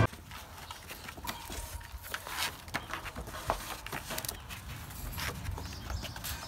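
American pit bull terrier puppies scuffling in a wire cage: irregular light clicks and taps of paws and claws on the floor, with knocks against the wire.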